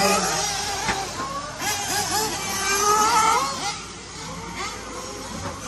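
Several 1/8-scale nitro RC buggy engines whining at once, their pitch rising and falling as they accelerate and slow, a little quieter near the end.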